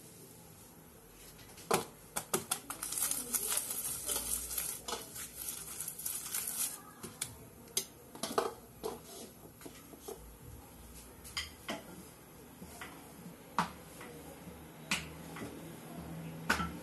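Kitchen clatter while rotis are being rolled and cooked: scattered clinks and knocks of utensils and pans and a wooden rolling pin on its board, with a busier stretch of rapid clicking and scraping a few seconds in.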